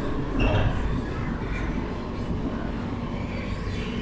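Steady low rumble of a Channel Tunnel shuttle train carrying the bus, heard from inside the carriage, with a brief knock about half a second in.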